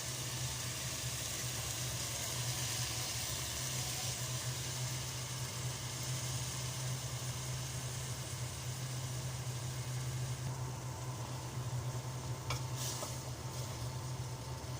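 Sautéed shrimp, tomato, garlic, onion and ginger sizzling in oil in a pan as cooked mung beans are stirred in. A steady low hum runs underneath, and there is a sharp click late on.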